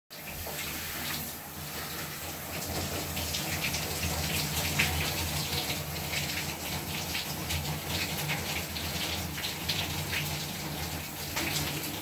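A shower running into a bathtub, with steady hissing and spattering water. A low steady hum sits underneath.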